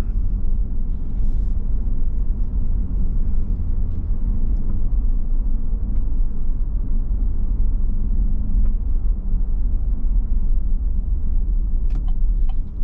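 Steady low rumble of a car being driven, with road and engine noise heard from inside the cabin.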